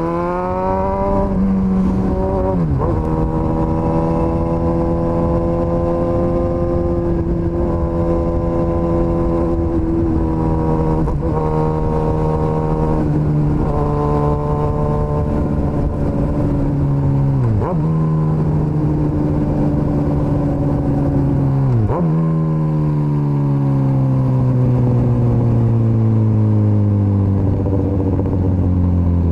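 Suzuki GSX-S1000's inline-four engine under way: it revs up at the start, then holds steady revs. The revs drop sharply and briefly about four times, then fall away gradually near the end.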